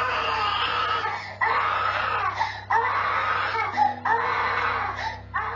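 Toddler crying in a series of long wails, each about a second, picked up by a baby-monitor camera, over a low steady music drone.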